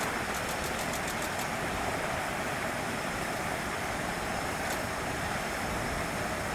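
Steady outdoor background noise, a hiss and rumble like distant traffic, with a quick run of faint high ticks in the first second and one more near the end.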